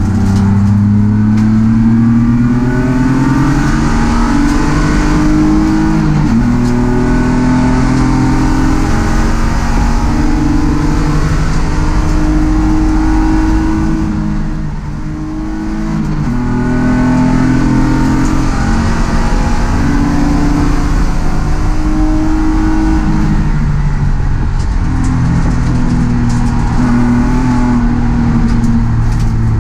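BMW E36 race car's engine heard from inside the cabin, accelerating hard with its pitch climbing and dropping back at each gear change. About halfway through it eases off briefly, as for a corner, then pulls up through the gears again.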